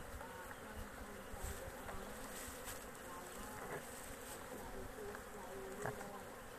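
Honeybees buzzing steadily around an open hive, a dense wavering hum, with a light knock of the hive tool on the frames near the end.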